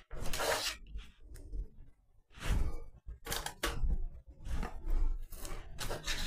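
Scone dough being cut and handled: a series of about six short rustling, scraping sounds with soft knocks as a fluted metal cutter is pressed through dough on a plastic cutting board and the cut scones are set into a parchment-lined air fryer basket.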